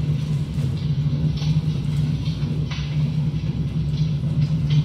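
A steady, loud low hum or drone, with brief soft hissing noises now and then over it.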